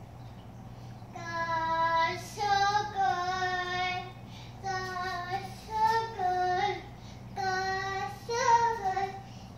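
A young girl singing alone, with held and gliding notes in three phrases separated by short breaths. The singing starts about a second in.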